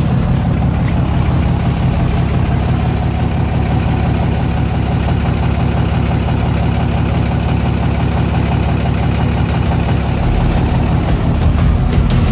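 6.7-litre Cummins inline-six turbo-diesel of a 2012 Ram 2500 idling steadily.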